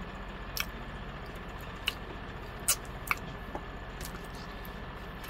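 Close-up eating sounds of a person gnawing meat off pig feet: a handful of short, wet mouth smacks over a steady background hum.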